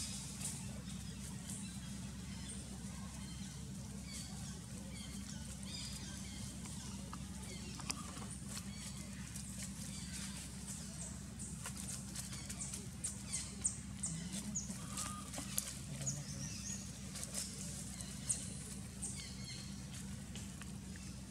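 Dry leaf litter crackling and rustling as baby macaques crawl and shift over it, the crackles coming thicker in the second half, over a steady low hum. A few faint high chirps are mixed in.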